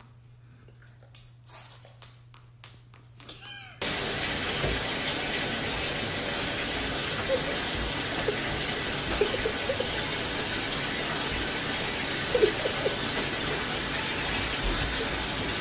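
Quiet with a few light clicks, then about four seconds in a bathtub tap is running, water pouring into the tub with a steady, even rush. A few brief faint cries from an animal can be heard over the water.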